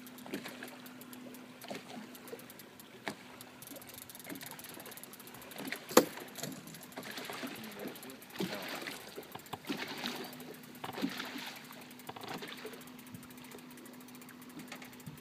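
Fishing boat on the water with a motor trolling: a steady low hum throughout, with bouts of rushing noise in the middle. A single sharp knock about six seconds in.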